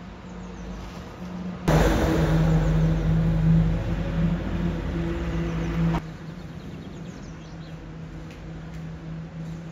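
A motor humming steadily. It gets much louder for about four seconds, starting suddenly a couple of seconds in and cutting off just as suddenly.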